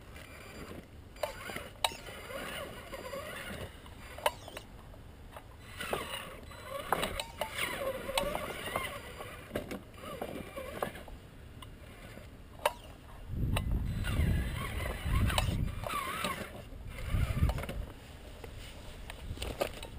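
Traxxas Summit RC rock crawler's electric motor and geared drivetrain whining, the pitch rising and falling with the throttle as it climbs over stones, with sharp clicks of tyres and chassis knocking on rock. A low rumble comes in about two-thirds of the way through and lasts a few seconds.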